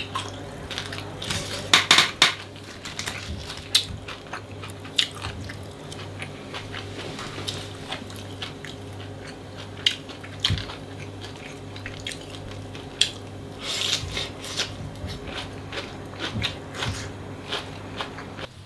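A person eating: utensils clicking irregularly against bowls and plates, with chewing and crunching of hard, sun-dried fried fish. A steady low hum runs underneath.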